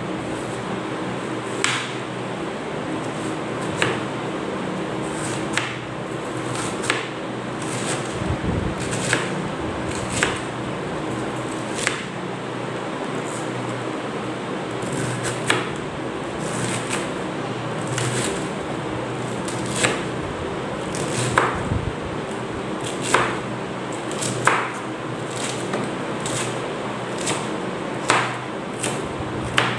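Kitchen knife chopping cabbage on a plastic cutting board: sharp knocks of the blade on the board, a second or two apart and irregular, over a steady background hum.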